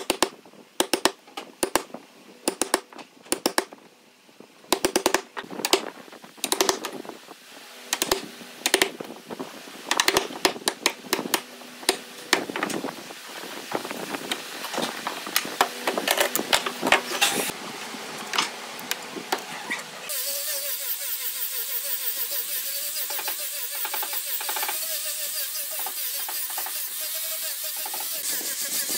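Wood chisel chopping a notch into a pine board, with sharp, irregular knocks, then scraping as the chisel pares the cut. About two-thirds of the way through it changes to an angle grinder with a sanding disc running steadily against wood, a continuous hiss with a wavering whine.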